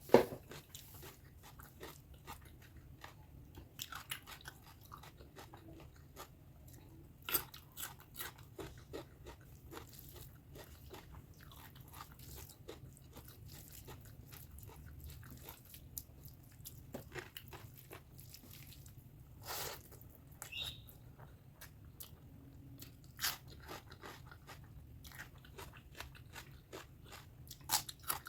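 Close-miked chewing and biting of spicy pork fat curry with rice: a steady run of small wet clicks and crunches, with a few louder bites along the way.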